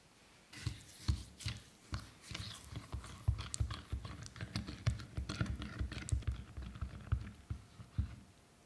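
A silicone spatula stirs thick chili-ketchup sauce with sugar in a glass bowl. It makes a quick, irregular run of clicks and soft knocks that starts about half a second in and stops shortly before the end.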